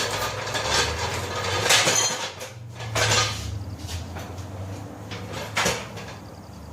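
Metal clanking and scraping from a jack being handled and set under the tractor, with several sharp clanks, the loudest about two seconds in.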